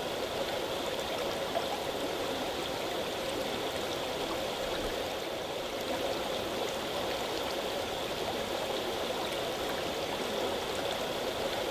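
A shallow, rocky river running over stones: a steady rush of flowing water.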